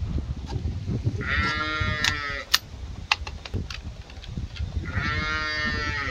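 A sheep bleating twice, two long wavering calls a few seconds apart. A few sharp clicks fall between the calls.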